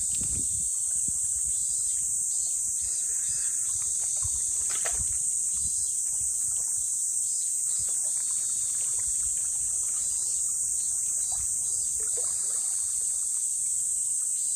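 Cicadas buzzing steadily and high-pitched, with faint sloshing of pool water as an Indian rhinoceros wades and lowers itself into it.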